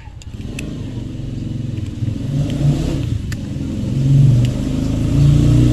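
An engine running and growing louder over several seconds, with a few faint light clicks.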